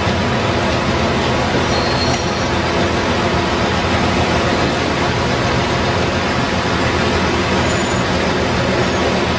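Semi-truck's diesel engine running hard at steady revs while its drive wheels spin in place on the pavement, smoking, as the truck tries to pull a container wedged under an overpass.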